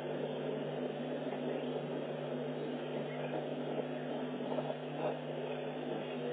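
A steady low hum over an even hiss of background noise, heard through a live-stream camera's microphone.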